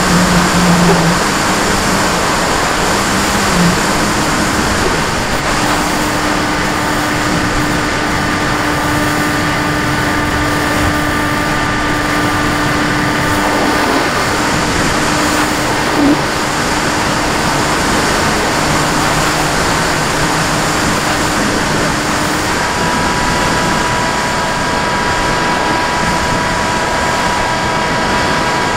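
Small model aircraft's motor and propeller running steadily, heard from on board, with a loud rush of air and water noise. Thin whining tones from the motor change pitch partway through and again later on.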